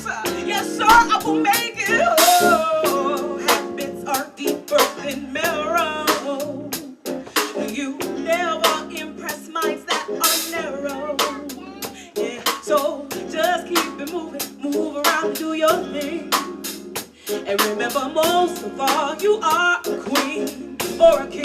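Live band music with a steady drum beat and a wavering melody line over sustained lower notes.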